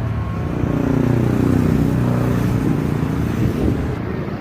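Engine running close by, its pitch rising and then falling.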